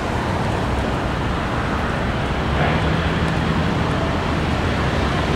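Steady city street traffic noise from passing cars, with a low engine hum standing out for a second or so midway.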